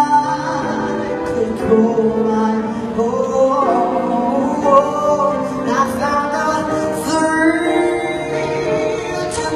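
A solo singer holding and gliding through long notes of a slow song, with piano accompaniment.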